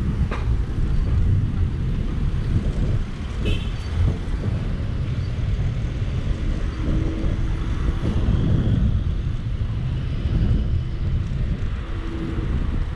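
Wind buffeting the microphone and road rumble from an electric scooter riding through city traffic, a steady low rumble that rises and falls. A short high beep sounds about three and a half seconds in.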